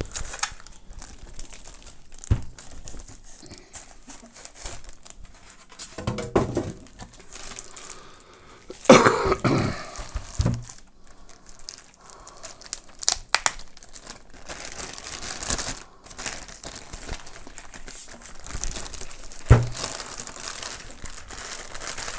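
Thin plastic wrapping crinkling and rustling as it is handled and pulled off a subwoofer cabinet, with a few dull knocks from the cabinet being moved, the loudest about nine seconds in.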